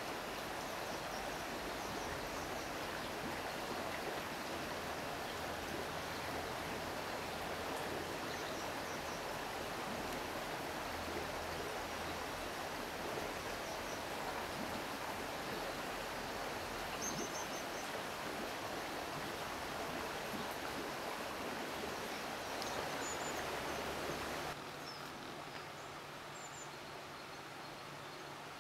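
Steady rush of flowing river water, with a few faint, short high chirps of a small bird scattered through it. Near the end the rush drops to a quieter, thinner level.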